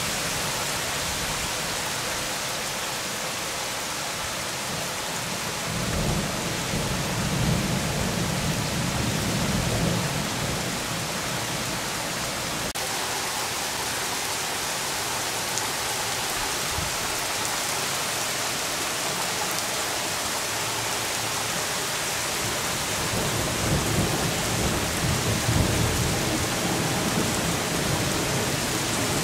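Heavy thunderstorm rain falling steadily on pavement and roofs, a constant hiss, with low rumbles of thunder swelling about six seconds in and again near the end.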